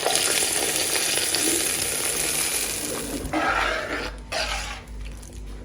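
Hot ghee with fried cashews and raisins sizzling, a steady hiss that fades after about three seconds, followed by softer, broken hissing.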